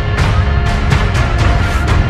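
Background music with heavy bass, held tones and a steady beat of sharp hits.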